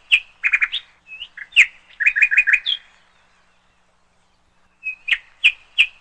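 A small songbird chirping and twittering in quick bright phrases, with a pause of about two seconds in the middle before the same phrase starts again.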